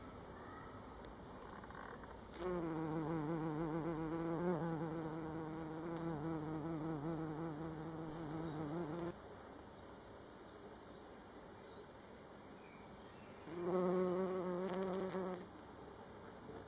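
A bee buzzing in flight among flowers. One long buzz of about six and a half seconds, with a slightly wavering pitch, comes about two seconds in. A second, shorter buzz of about two seconds comes near the end.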